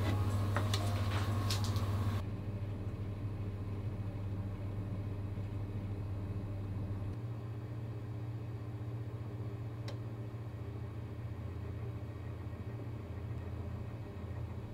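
Electric oven running while baking at 170 °C: a steady low hum, with one faint click about ten seconds in. Background music stops about two seconds in.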